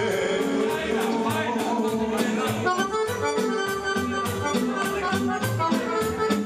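Serbian band music led by accordion playing quick melodic runs over a steady beat and pulsing bass.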